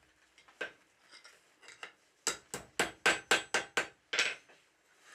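Blacksmith's hand hammer striking a steel bar on an anvil: one blow, a few light clinks, then a quick run of about eight blows at roughly four a second, the last one ringing briefly.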